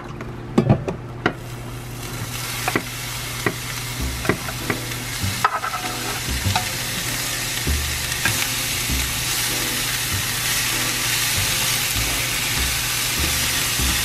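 Julienned carrots frying in hot oil in a rectangular omelette pan, stirred with wooden chopsticks. Sharp taps in the first few seconds, then a steady sizzle that builds up and keeps going.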